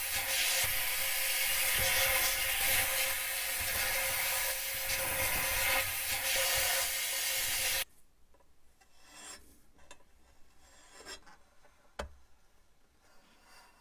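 A power tool runs with a steady whine while it scrubs and rasps at the surface, the kind of abrading done to strip a pressed-steel toy's body. It cuts off suddenly about eight seconds in. After that it is nearly quiet, with a few light clicks and one sharp click.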